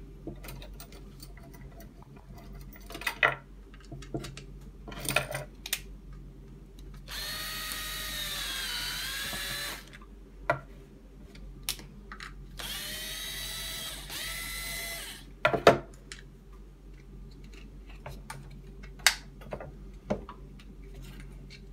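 Cordless drill-driver running twice, about three seconds each time, driving a screw back into the plastic fork of a stroller's front wheel. Its whine dips in pitch partway through each run. Sharp clicks and knocks of plastic parts and tools being handled come between the runs, the loudest just after the second run.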